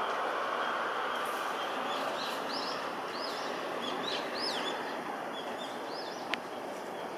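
Steady, slowly fading rumble of a Boeing KC-767 tanker's twin jet engines as it flies away on approach with gear down. Small birds chirp quick rising-and-falling calls over it from about two seconds in, and a single sharp click comes near the end.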